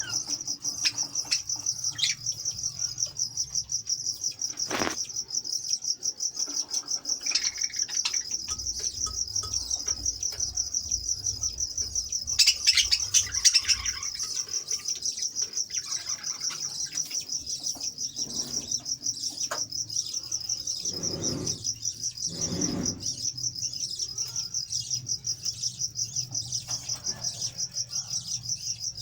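Small caged parrots chirping and chattering, over a steady, fast-pulsing high-pitched chirp. About twelve seconds in there is a short burst of louder chatter, with a few short flutters or knocks elsewhere.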